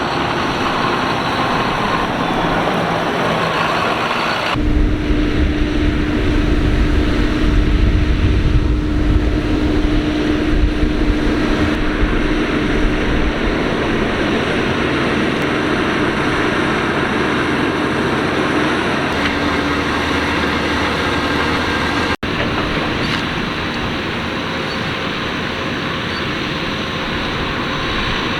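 Farm tractor engines and carrot-harvesting machinery running steadily in the field: a loud engine rumble with a steady whining hum over it. The sound changes abruptly about four seconds in and again after a brief dropout near the end.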